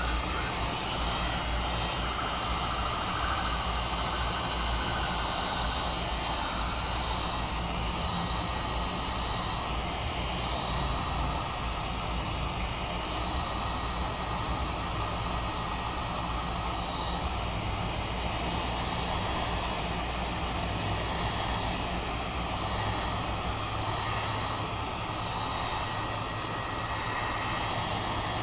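Heat gun running steadily, its fan blowing hot air with an even, unbroken noise.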